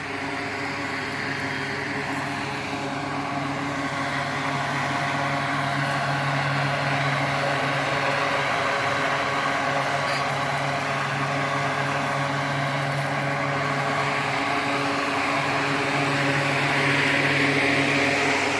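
A machine running with a steady, even hum: a low pitched drone under a rushing hiss, swelling slightly near the end.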